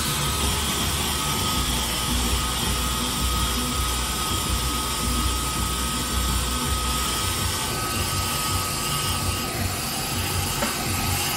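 Bowl-lift stand mixer running with liquid nitrogen pouring into its steel bowl: a steady hiss as the nitrogen boils off, over the mixer motor's steady whine and low rumble.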